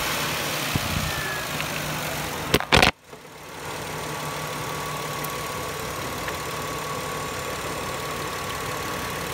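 Car engine idling steadily. About two and a half seconds in there are a few sharp knocks, and the sound drops out suddenly for a moment before the idle comes back.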